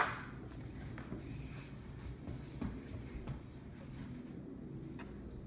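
A sharp tap of a paintbrush on a plastic paint palette right at the start, then the faint scratching of the brush being worked over canvas, with a few small ticks.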